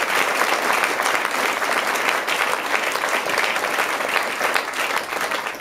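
Audience applauding: dense, steady clapping that thins out and stops near the end.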